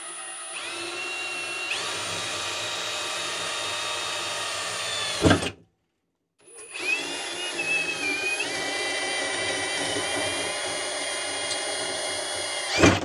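Cordless drill with a 5 mm bit boring through a metal tube, running steadily in two spells, each ending in a brief loud burst before the drill stops.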